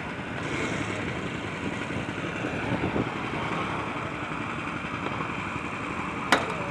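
Engine running steadily amid street noise, with one sharp knock near the end.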